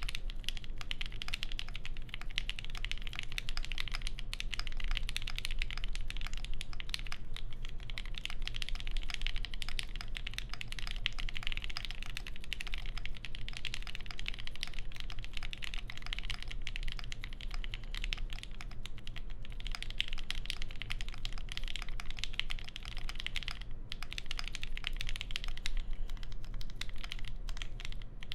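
Continuous fast typing on a mechanical keyboard with lubed linear Alpaca switches in a POM plate, under GMK keycaps: a dense, unbroken stream of key clacks with a brief pause near the end.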